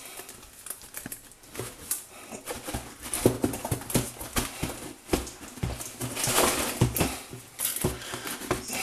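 Cardboard box wrapped in filament packing tape being handled and picked at with gloved fingers: scattered taps, scrapes and rustles, with a longer scratchy stretch about six seconds in.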